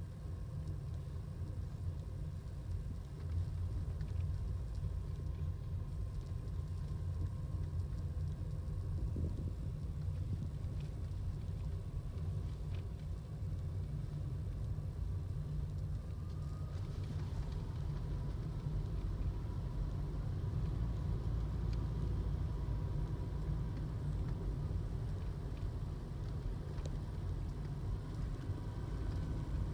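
Steady road and driving rumble inside the cabin of a 2012 Toyota Aqua hybrid on the move, with a faint steady whine above it that shifts slightly in pitch about halfway through.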